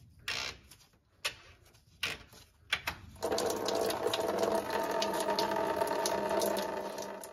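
A few light clicks and knocks as the radiator drain cock is worked open, then, about three seconds in, a steady stream of Toyota pink coolant pouring from the Tundra's radiator drain into a drain pan, with a steady ringing hum from the pan.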